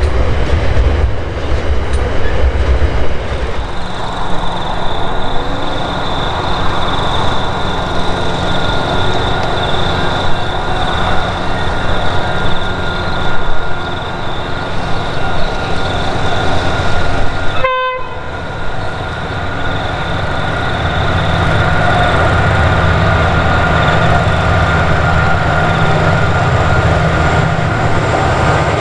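Diesel-hauled freight train passing: locomotive engines rumbling and wagon wheels running on the rails, with steady high-pitched tones over the top. The sound breaks off abruptly about two thirds of the way through and resumes on another pass.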